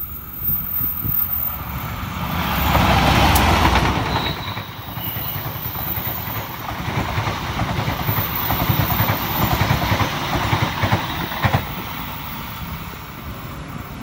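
Passenger train hauled by a diesel locomotive passing close by: the locomotive's engine is loudest about three seconds in, then the coaches' wheels clatter over the rails, with one sharp click near the end before the sound fades.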